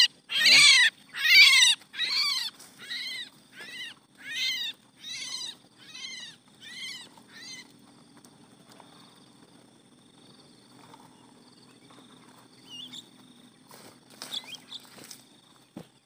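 Harsh, repeated squawks from caught mynas held in the hand, about two a second, growing fainter and stopping about seven seconds in as the birds are carried away. After this come a few faint bird chirps and a light knock near the end.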